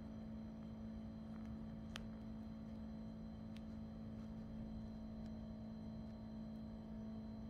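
Quiet steady hum, with three faint sharp clicks about two, three and a half and five seconds in; no cooing.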